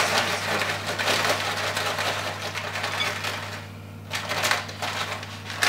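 Sultanas poured from a crinkling plastic bag into a glass bowl of flour, the dried fruit pattering in. A dense rustle for about three and a half seconds, then a few scattered rustles as the last ones are shaken out.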